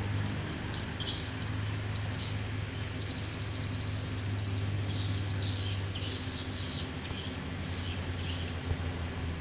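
Insects chirping in short repeated high bursts over a steady low hum.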